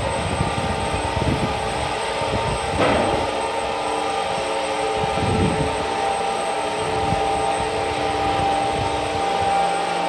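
Agitator of a 1000-litre reactor running on a water trial: a steady mechanical drone with several held tones over water being churned by the blades, with a brief louder burst of noise about three seconds in.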